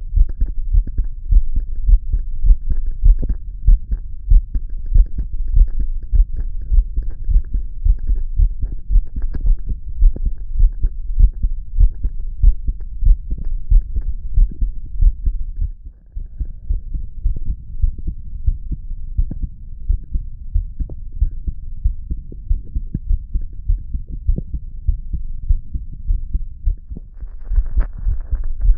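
A man's heartbeat, relaxed and steady, as low thumps about once a second. A faint hiss joins near the end.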